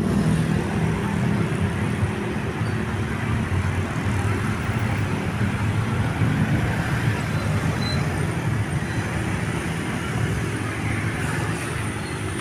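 Bus engine running steadily, a low even hum.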